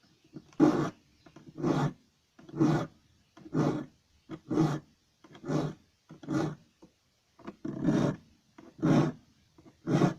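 Hand file rasping across the teeth of a hand saw being sharpened: about ten even strokes, roughly one a second.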